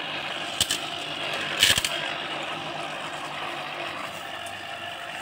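Homemade electric grass cutter running steadily as it is pushed through grass. There is a sharp knock just over half a second in and a louder cluster of knocks about a second and a half in.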